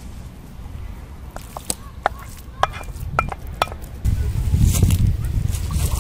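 Wooden spatula knocking and scraping as thick red pepper paste is scooped from a clay dish into a metal bowl of bulgur: a string of sharp, short clicks and knocks. About four seconds in, water starts pouring from a clay jug into a clay cup.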